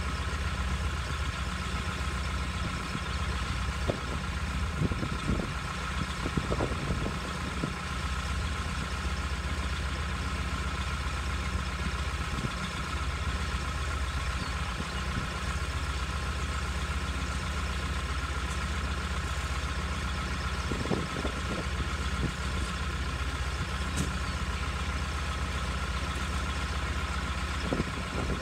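Truck crane's engine idling steadily, with a few short knocks and clanks as work goes on around the load.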